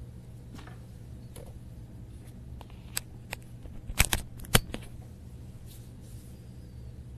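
Steady low hum with a short flurry of sharp clicks and taps a little before the middle, the loudest two about half a second apart.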